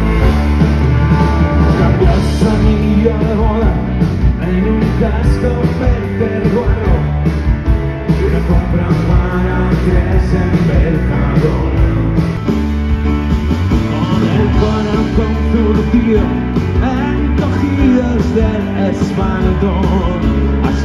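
Live rock band playing, with a steady drum beat under guitars and bass.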